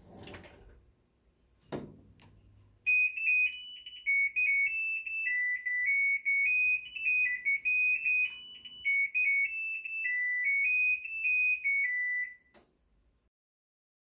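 Hitachi BW-V90F washing machine playing its electronic end-of-cycle beeper tune, a stepped melody of high beeps lasting about ten seconds: the wash is finished and the laundry is ready to take out.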